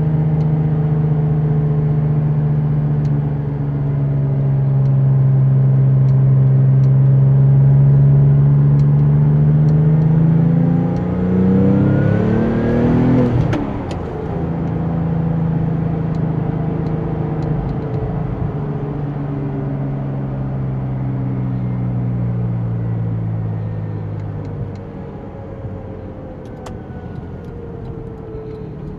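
Porsche 996 Turbo's twin-turbo flat-six engine under way, its note climbing as the car accelerates about ten seconds in, then dropping sharply at a gear change. It holds steady before falling away as the car eases off near the end.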